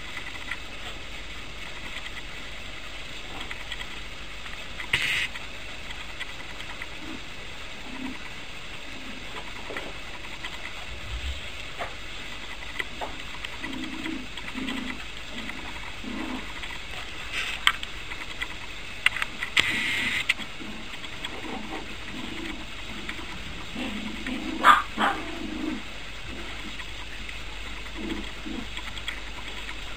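Puppies playing, with short low growls in bursts and a few sharp knocks and clicks over a steady background hiss.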